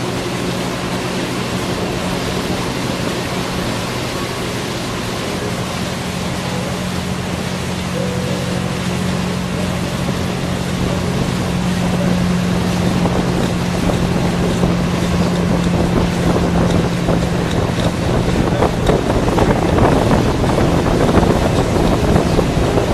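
Motorboat engine running steadily at speed while towing a wakeboarder, with the rush of churning wake water and wind on the microphone, which grow louder in the second half.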